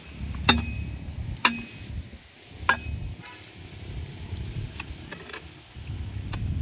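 A digging pole being thrust down into wet mud and sand, giving sharp knocks about a second apart in the first few seconds, several with a brief ringing tone, then fainter knocks. A low rumble runs underneath.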